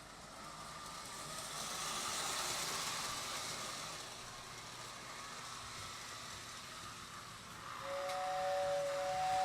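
Toy steam locomotive running with a rushing noise that swells and fades over the first few seconds. Near the end, the rebuilt Lionel tender whistle starts blowing, a steady two-note chord that is the loudest sound here.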